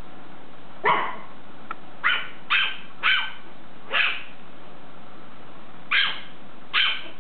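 Small dogs barking: about seven short, sharp yaps, one about a second in, four more in quick succession, then two near the end.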